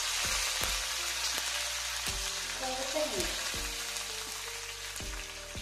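Hot oil sizzling in a kadhai as mustard seeds, cumin, sesame, curry leaves and green chilies fry for a tadka. The sizzle gradually dies down. Background music with a steady beat plays underneath.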